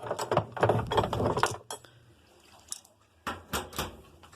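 Metal hand tools clinking and clattering as they are handled: a run of clatter in the first second and a half, then a few sharp metallic knocks a little after three seconds in.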